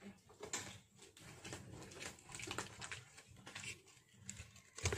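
Cloth rustling and light handling clicks as a garment is handled, with a sharp knock near the end.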